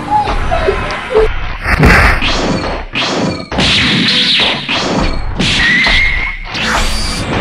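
Cartoon fight sound effects: a string of loud punch and kick impacts, whacks and crashes landing in quick succession.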